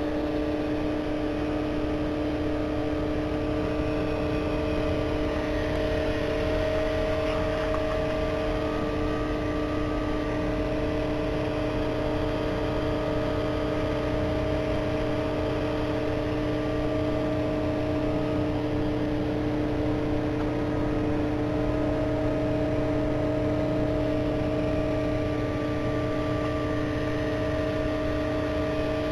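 Aquarium equipment running: a steady electric hum of a few held tones over an even hiss, unchanging throughout.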